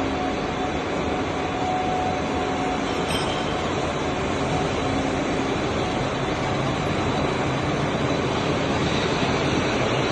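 WMW ZFTK-500 machine tool running steadily, a constant mechanical rumble and whir with a faint steady hum.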